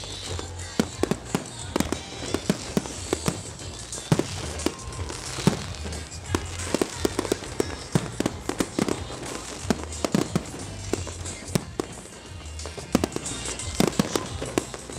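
Aerial firework shells of a professional display bursting one after another: dozens of sharp bangs in quick succession, with crackling between them.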